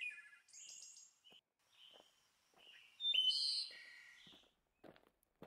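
Birds chirping: a string of short, high calls, some sliding in pitch, loudest about three seconds in. A few soft thuds come near the end.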